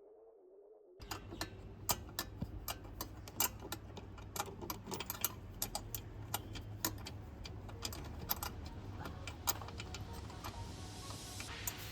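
Diesel engine idling: a steady low hum with sharp, irregular ticks several times a second. It starts abruptly about a second in.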